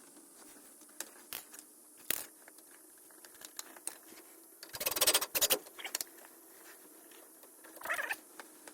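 Metal hand tools and bolts clinking and scraping during work on a truck's CV axle and differential, with a short run of rapid clicking about five seconds in and another brief burst near the end.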